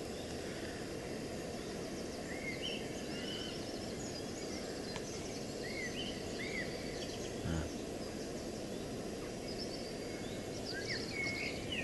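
Small birds chirping and singing in short, scattered phrases over a steady low outdoor rumble, with one soft low thump about seven and a half seconds in.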